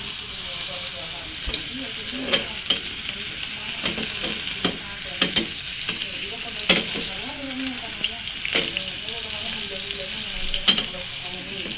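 Steak sizzling in a frying pan, a steady hiss, with a dozen or so sharp clacks of a utensil against the pan as it is turned or stirred.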